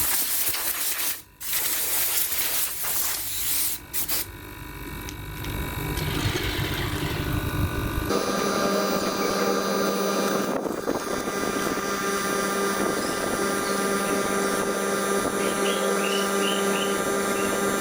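A rushing hiss that stops and starts for the first few seconds, then a low rumble. About eight seconds in it gives way to the steady hum of a fridge compressor running as a homemade air compressor.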